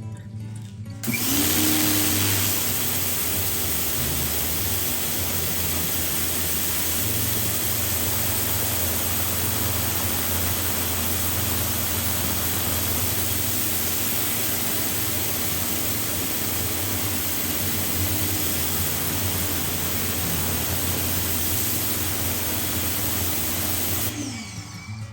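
Greenworks 1900 PSI electric pressure washer running: a loud, steady spray hiss over the hum of the motor and pump. It starts about a second in, with a brief rising tone as the motor spins up, and stops near the end with a falling tone as it winds down.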